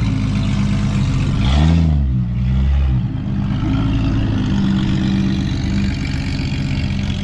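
A vehicle engine running steadily, with one quick rev up and back down about a second and a half in.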